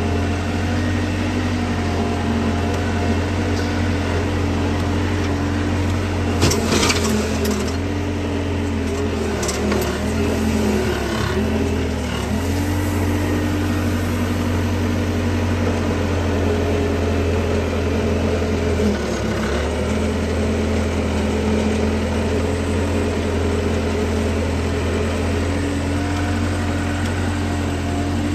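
Diesel engine of a skid-steer or excavator-type earthmoving machine running steadily, its pitch sagging briefly several times as it takes load. A short metallic clatter comes about six seconds in.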